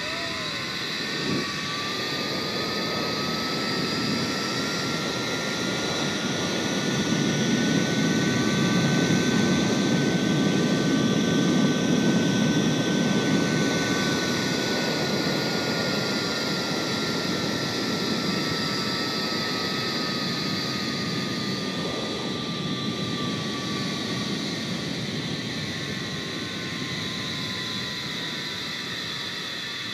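Zipline trolley running down the steel cable: its pulley wheels give a whine that climbs in pitch as the rider speeds up, peaks about a third of the way through, then slowly drops as the trolley slows. Under it, a rush of wind on the microphone swells and fades with the speed.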